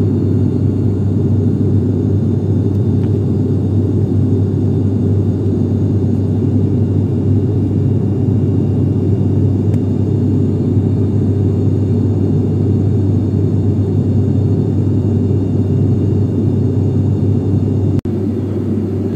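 Steady drone of an airliner in flight, heard from inside the passenger cabin: engine and airflow noise, with a momentary break near the end.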